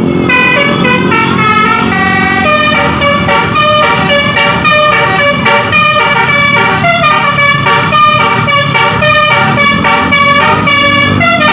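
Tour bus's 'telolet basuri' musical air horn playing a tune: loud chords of several horn tones stepping up and down in pitch, two or three notes a second.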